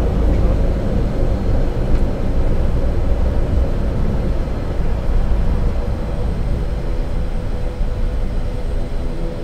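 ATR 72's twin turboprop engines and propellers, heard from inside the cockpit during the landing rollout, with a deep rumble. A steady hum of several tones comes through more clearly in the second half as the overall level eases down.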